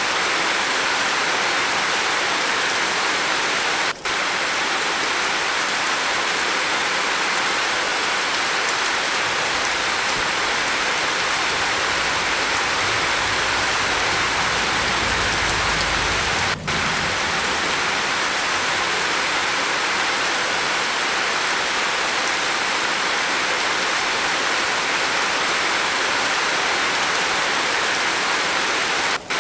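Steady rain falling on a roof, an even dense hiss. A faint low rumble swells around the middle, and the sound cuts out for an instant three times.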